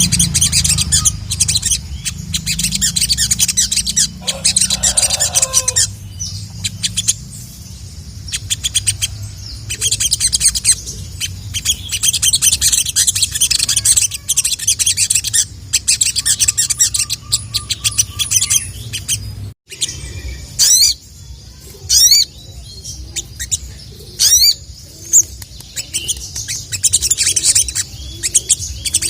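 Sogok ontong (sogon) sunbird singing a rapid, high, thin chirping trill in repeated bursts, with a few sharp sweeping whistles about two-thirds of the way in. A steady low hum runs underneath.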